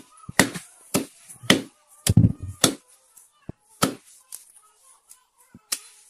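A long, broad fish-cutting knife chopping through a pangasius on a wooden stump chopping block, cutting it into steaks. The blows are sharp, about two a second at first, with the heaviest ones clustered about two seconds in, then sparser chops toward the end.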